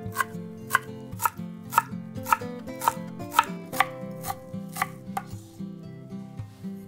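Chef's knife chopping fresh dill on an end-grain wooden cutting board, the blade knocking on the wood about twice a second, about a dozen strokes, stopping about five seconds in.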